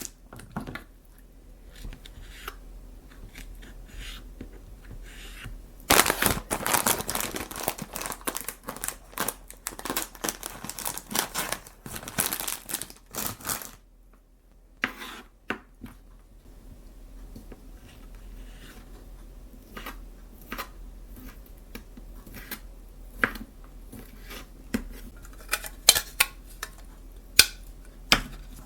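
Plastic packaging being crinkled and torn open, with a dense stretch of crinkling about six seconds in that lasts some seven seconds, then scattered light clicks and taps.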